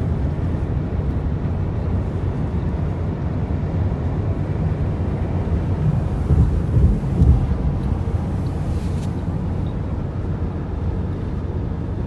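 Road noise inside a car moving at highway speed: a steady low rumble of tyres and wind, swelling louder for a moment about halfway through.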